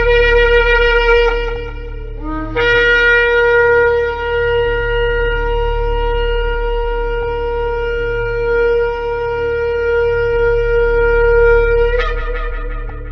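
Shofar blown: a first blast, a brief break, then a long held note of about nine seconds that jumps up in pitch at the end before dying away. A steady low hum runs underneath.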